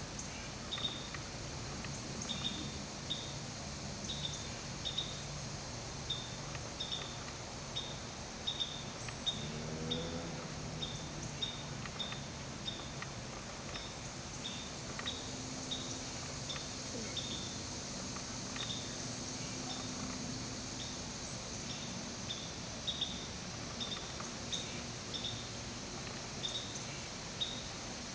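Outdoor ambience: a short high chirp repeating regularly about one and a half times a second over a steady high hiss, with a low hum that rises in pitch about ten seconds in and holds steady for several seconds after.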